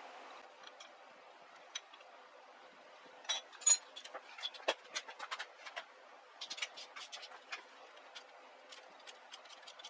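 Irregular clicks and small metallic clinks of hand tools and metal parts being handled during motorcycle repair work, with two louder ringing clinks a little over three seconds in and busier runs of clicks after that.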